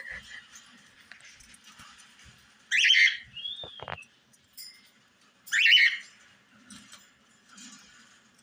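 Cockatiels calling: two loud, harsh squawks about two and a half seconds apart, with a quick falling whistle just after the first and soft chirps in between.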